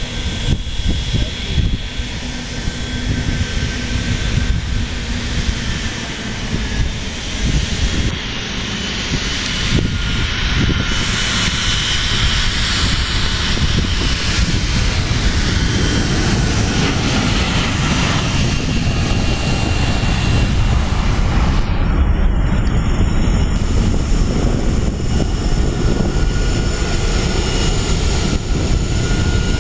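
Airliner jet engines running loud: a deep rumble with a hiss and a faint steady high whine.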